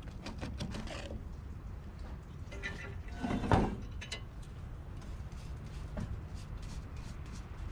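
A heavy, rusted steel rear suspension arm being lifted and turned over on a sheet-metal table: scraping and knocking, loudest once a little after three seconds, with light clicking near the end, over a steady low rumble.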